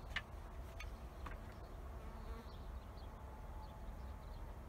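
Faint insect buzzing with a pitch that wanders, over a steady low rumble, with a few short high chirps.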